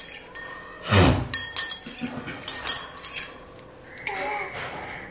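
Spoon clinking against a mug and a plastic food container: several sharp clinks through the first three seconds, with a dull thump, the loudest sound, about a second in. A short vocal sound, likely the toddler's, near the end.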